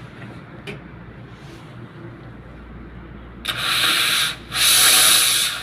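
Automatic coffee machine giving two loud hissing bursts, each about a second long with a short break between them, starting about three and a half seconds in.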